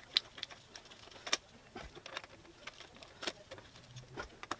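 A handful of light, irregular metallic clicks and clinks from a hand tool working on the passenger foot peg mount's 10 mm bolts.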